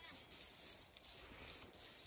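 Quiet lambing shed: a faint even hiss with a few soft clicks and rustles, as sheep and lambs move on straw bedding.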